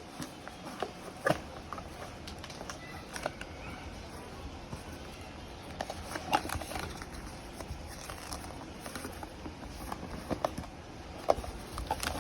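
Scattered light clicks and taps of a small product box and bottle being handled and opened, over a faint low background hum.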